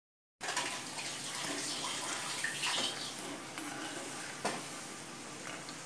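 Chicken falafel rings deep-frying in hot oil in a kadai on a medium-low flame: a steady sizzle and bubbling that starts about half a second in. A slotted spoon touches the pan twice, giving two light clicks.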